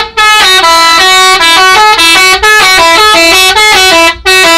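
Bus telolet horn, a multi-note air horn, playing a quick, loud tune of stepped notes, with short breaks just after the start and near the end.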